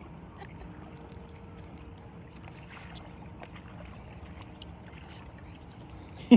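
Minn Kota Ulterra electric trolling motor running with a faint steady hum as it drives the boat in on remote control, over water lapping with small scattered ticks.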